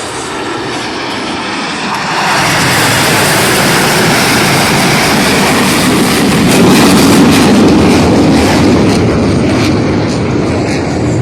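Blue Angels F/A-18 Super Hornet jets passing, a loud jet noise that builds about two seconds in, peaks a little past the middle and eases slightly near the end.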